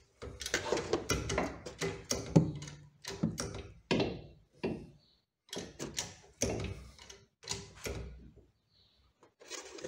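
Repeated short knocks and clunks, one or two a second, from the car's rear suspension being worked by hand and jack: the coil spring is being compressed further so the shock absorber will reach its mount.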